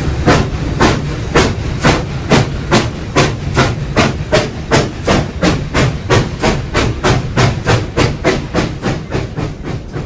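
Durango and Silverton K-28 No. 473, a narrow-gauge steam locomotive, working hard under steam. Its exhaust chuffs quicken from about two to about three a second as it gathers speed, then fade toward the end.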